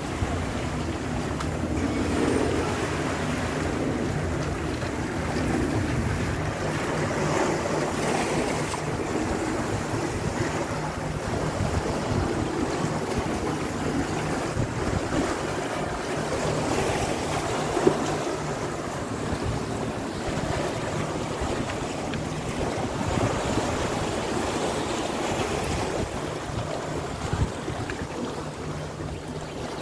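Small waves lapping against a rocky shore with wind on the microphone, a faint steady low hum underneath, and a couple of brief knocks.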